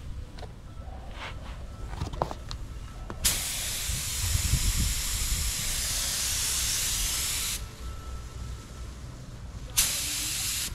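Paint spray gun hissing as base coat is sprayed: one long pass of about four seconds that starts and stops sharply, then a second, shorter burst near the end. A few light clicks come before the first pass.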